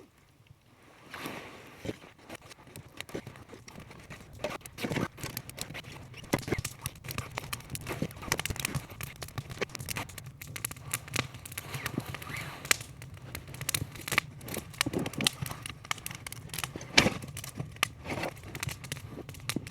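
Wood fire crackling: irregular sharp snaps and pops over a steady low hum of burning, with one louder pop near the end.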